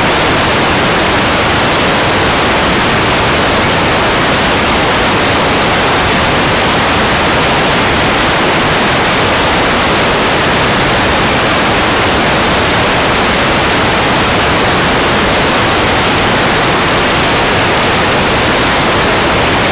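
Loud, steady static hiss filling the whole sound track with no change, drowning out any speech: the signal of a broken audio feed rather than any sound in the room.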